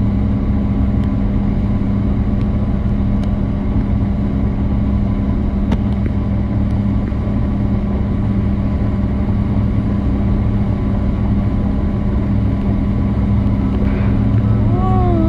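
Motorboat engine running steadily at cruising speed, a constant low drone, with a steady rush of wind and water.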